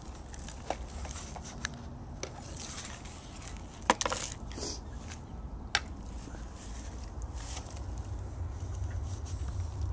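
Plastic toy shovels scraping and scooping dirt, with a few sharp plastic knocks, the loudest about four seconds in.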